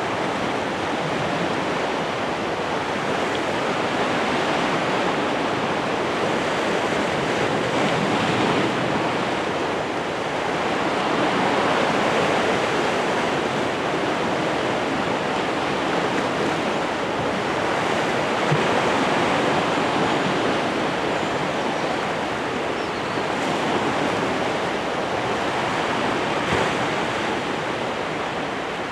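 Sea surf: a steady rush of waves that swells and eases every few seconds.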